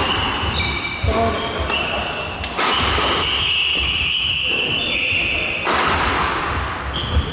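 A badminton doubles rally: rackets hitting the shuttlecock with sharp cracks every second or few, and high short squeaks of court shoes on the hall floor.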